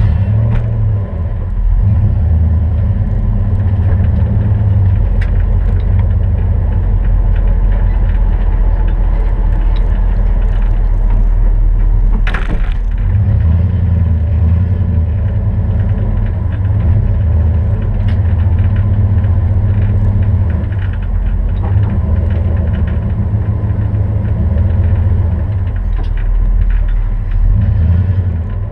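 Steady low rumble of road and engine noise inside a vehicle cab at highway speed, with one brief sharp knock about twelve seconds in.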